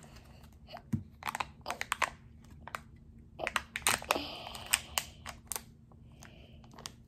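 Foil wrapper crinkling and tearing as it is peeled off a plastic Kinder Joy egg by hand: irregular clusters of sharp crackles with short pauses between them.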